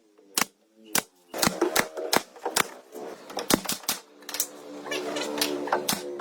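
An irregular run of sharp knocks and taps, a dozen or so, typical of hand tools striking wood. A faint steady tone runs underneath and grows stronger about halfway through.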